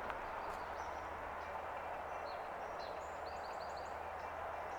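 Outdoor ambience: a steady background hiss with a bird chirping faintly, a quick run of four short notes about three seconds in.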